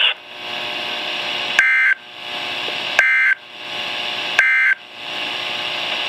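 NOAA Weather Radio end-of-message signal from a Midland weather radio: three short, identical bursts of warbling SAME data tones about a second and a half apart, over steady radio hiss, marking the end of the warning broadcast.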